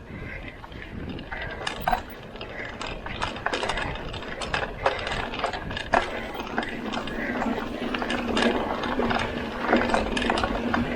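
Mountain bike rolling over rough ground: the rear hub's freewheel ratcheting while coasting, with sharp irregular rattles and clicks from the bike. A low steady hum joins in about eight seconds in.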